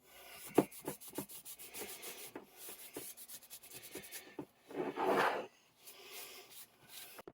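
Close rubbing and scratching by hand on a metal vise, with quick short strokes, then a louder rasping rush about five seconds in and softer rubbing after it.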